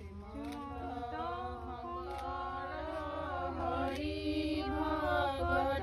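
A group of women singing a slow, chant-like traditional Assamese wedding song (biya naam) together, with long held notes. The singing grows slightly louder.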